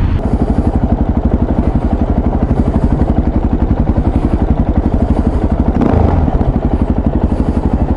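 Motorcycle engine running at low revs, its exhaust beating in a steady, rapid pulse.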